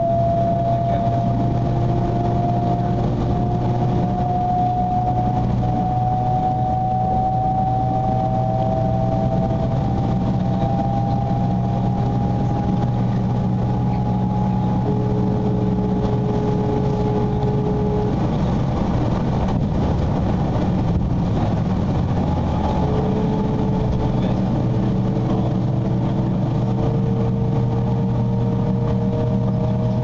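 Inside a 300 series Shinkansen car: the GTO-thyristor VVVF inverter and traction motors whining as the train accelerates, several tones slowly rising in pitch and shifting to new tones about 15 and 23 seconds in, over a steady low rumble of the running gear.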